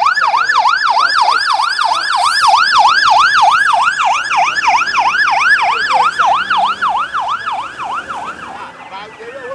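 Emergency vehicle siren in a fast yelp, its pitch sweeping up and down about three to four times a second, fading near the end and giving way to a single falling tone.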